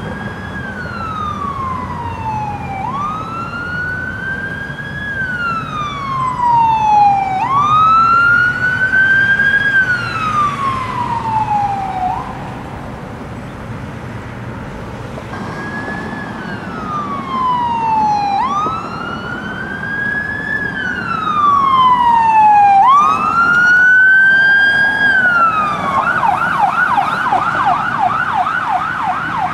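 Fire-department emergency vehicle's electronic siren on a slow wail, rising and falling in cycles of about five seconds with a short break about twelve seconds in, then switching to a rapid yelp for the last few seconds. Road traffic runs underneath.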